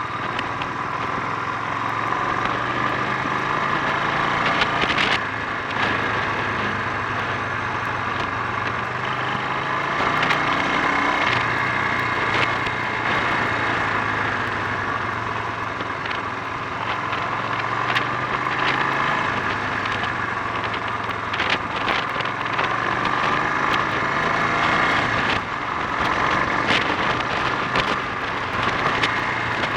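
Honda XL 350 single-cylinder four-stroke engine running on the move, its note rising and falling with the throttle, with short sharp cracks every few seconds. The bike is being ridden to check a reported splutter and misfire.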